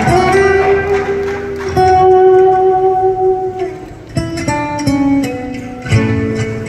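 Solo acoustic guitar played live through a PA: a long note held for a few seconds, then picked single notes starting again about four seconds in.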